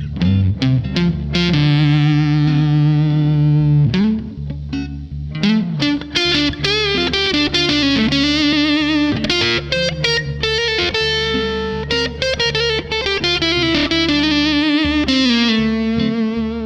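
Electric guitar played through a fuzz effect: a lead line of picked notes, some held long with string bends and vibrato.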